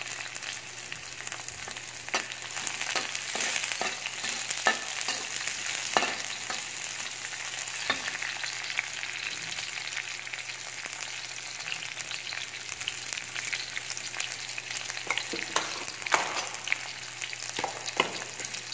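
Sliced red chilli, garlic and ginger sizzling in hot oil in a wok, stirred with a metal spatula that scrapes and clinks against the pan now and then.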